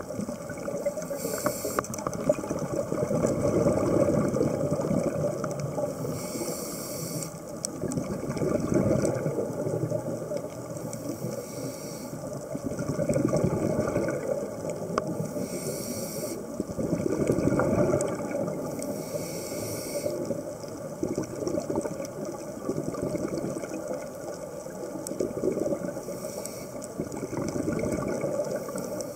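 Scuba regulator breathing heard underwater: a short hissing inhalation every few seconds, alternating with the bubbling rush of exhaled air.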